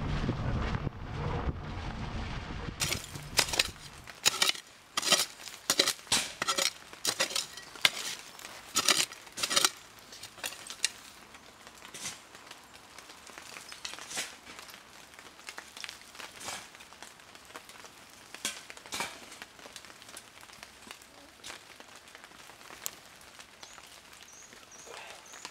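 Wind rumbling on the microphone for the first few seconds, then a small hand shovel and gloved hands digging through loose soil: quick scrapes and clicks, thick at first and sparser later, with the odd clink of objects in the dirt.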